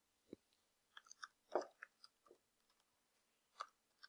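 Faint, irregular clicking of computer keyboard keys as a password is typed: about ten separate keystrokes, unevenly spaced, with a pause of over a second in the middle.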